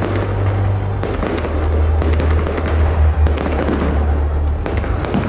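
Fireworks display: a dense run of sharp cracks and pops from shells bursting, one after another, over a steady low rumble.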